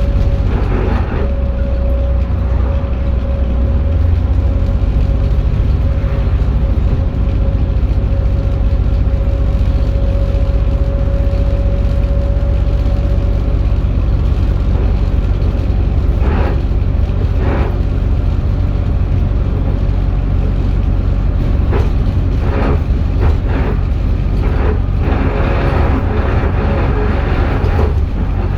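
Alexander Dennis Enviro400H hybrid double-decker bus running, heard from inside: a steady low rumble, with a steady whine over it for about the first half that fades away. In the second half there are scattered knocks and rattles from the bodywork.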